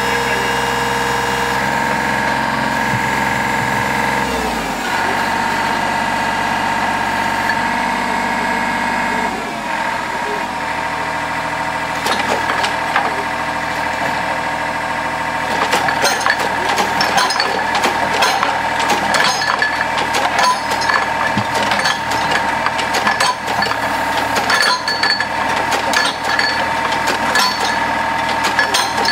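Cable percussive drilling rig's engine and hydraulics running steadily, with a change in its note about four seconds in and again near ten seconds. From about twelve seconds on, and more densely after sixteen, frequent sharp metallic knocks and clanks from the working rig sound over the running engine.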